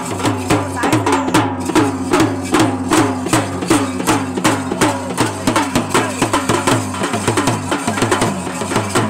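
A double-headed drum beaten with sticks in a fast, steady rhythm of several strokes a second, each stroke ringing briefly with a falling pitch, with a steel vessel struck alongside as extra percussion.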